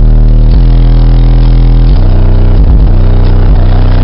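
Bass-heavy music played very loud through eight 12-inch Pioneer Premier TS-W3002SPL subwoofers, heard inside the car. Deep sustained bass notes step to a new pitch every second or so, and the recording is overloaded and distorted.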